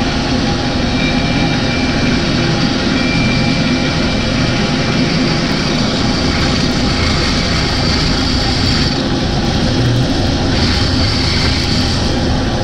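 Bandsaw running steadily while it cuts a cured epoxy-resin block packed with colored pencils.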